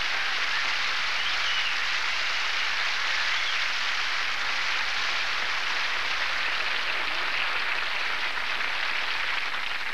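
Studio audience applauding steadily at the end of a song, with a few faint cheers in the first seconds.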